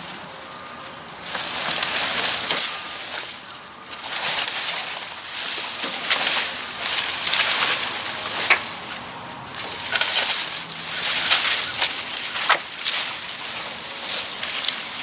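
Irregular scraping, rustling and knocking as a set of steps is pulled out and unloaded from a dump truck bed, with several sharp knocks.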